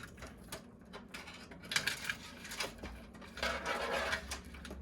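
Hands handling PC parts and cables inside a computer case: scattered light clicks and knocks, and a longer rustle about three and a half seconds in.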